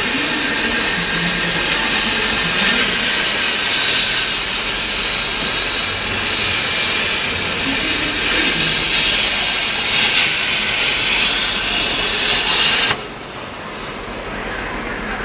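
CNC plasma cutting torch running: a loud, steady hiss that cuts off abruptly near the end, leaving a quieter background noise.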